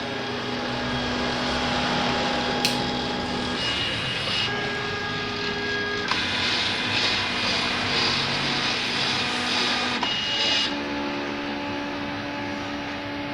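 Paper plotter running, its drive motors whining at steady pitches that jump to new pitches every few seconds over a constant mechanical hiss, with one sharp click.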